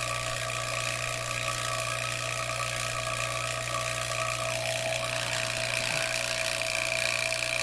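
Refrigeration vacuum pump running steadily, evacuating a refrigerator's sealed system after a condenser repair: an even motor hum with a few constant tones over a hiss. One higher tone drops out a little past halfway.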